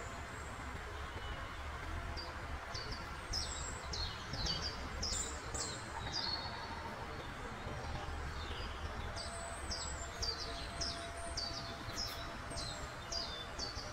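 Birdsong: a small bird repeating short, high, quickly falling chirps in two runs, about two to three a second, over a steady low rumble of background noise.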